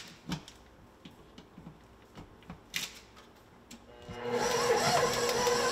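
A few small clicks as the power cord is plugged in and the controls are handled. About four seconds in, a KitchenAid stand mixer's motor starts and runs steadily with a held tone as it beats chunks of smoked kingfish in its steel bowl.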